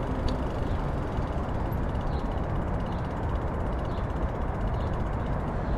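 Wind buffeting a bicycle-mounted action camera's microphone while riding, a steady rushing noise heaviest in the low end, with a faint rapid ticking above it.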